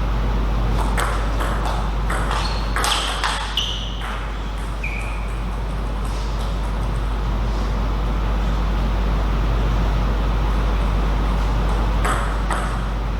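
Table tennis ball clicking sharply off the bats and table in a quick rally over the first few seconds, then a few more ball clicks near the end, over a steady hall hiss and low hum.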